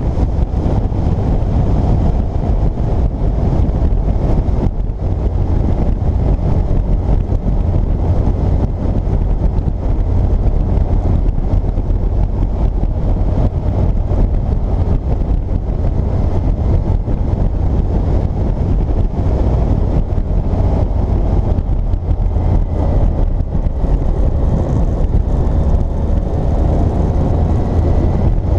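Wind rushing and rumbling over the microphone of a 2006 Yamaha FJR1300 motorcycle riding at speed, with the bike's inline-four engine heard faintly underneath, its note shifting a little near the end.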